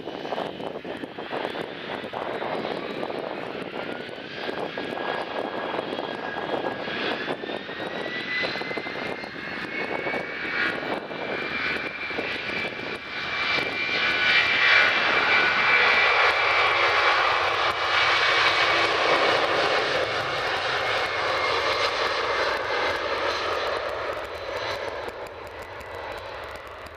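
Boeing 757-200 freighter's twin jet engines at takeoff power: a whine rises in pitch as the engines spool up. The noise builds to its loudest as the aircraft rolls past and then fades near the end.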